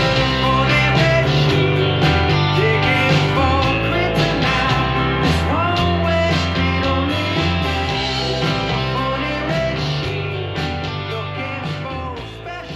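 Background rock music led by guitar, with some singing, gradually getting quieter over the second half.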